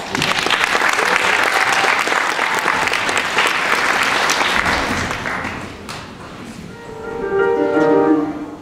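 Audience applauding, the clapping fading out after about six seconds; music starts near the end.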